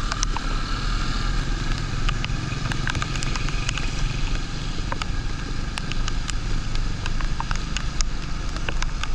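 Motorcycle riding at steady speed on a rain-soaked road: the engine runs evenly under a steady hiss of wet tyres and rain, with scattered sharp ticks of raindrops hitting the camera.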